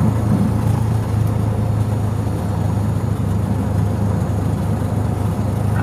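Light single-engine airplane's piston engine and propeller running steadily at an even pitch, heard from inside the cockpit.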